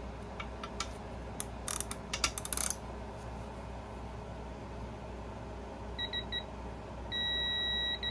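A run of sharp clicks about two seconds in, then a digital torque adapter beeping on a bolt being tightened: three short beeps about six seconds in, then one long steady beep, the signal that the set torque of 13 foot-pounds has been reached.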